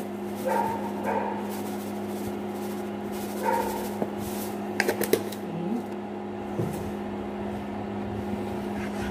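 Steady electrical hum from the induction cooker under the pan. A few brief whining tones come in over it, and light clicks sound in the middle as the sugar is poured in.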